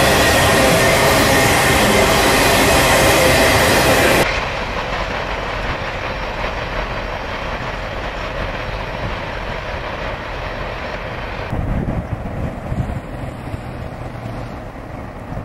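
Intermodal freight train of truck trailers on flatcars rolling past close by, loud steel-wheel-on-rail noise with steady ringing tones in it. About four seconds in, the last car passes and the sound drops suddenly to a quieter rumble that fades as the train draws away.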